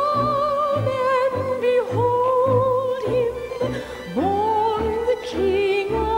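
Music: a melody of long held notes with vibrato, moving to a new pitch every second or so, over an accompaniment with a repeating low bass.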